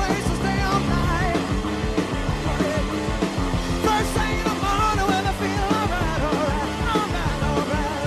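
Hard rock band playing live: an electric lead guitar line of bent, wavering notes over bass and drums.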